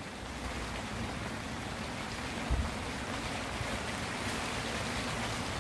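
Hail and rain coming down, a steady even hiss, with one dull thump about halfway through.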